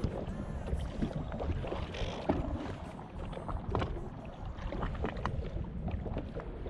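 Wind on the microphone and water slapping against the jet ski, with scattered small clicks and knocks as a fish is handled over the landing net.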